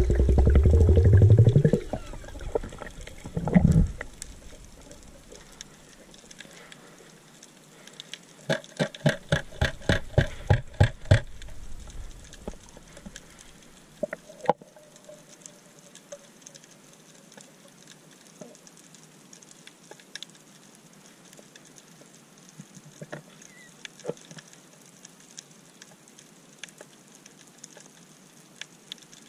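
Underwater sound picked up through an action camera's waterproof housing during a spearfishing dive. In the first few seconds there is a loud low sound with a rising tone, then a thump. A little past a third of the way in comes a run of about a dozen evenly spaced clicks, about four a second, and after that only faint, scattered crackling.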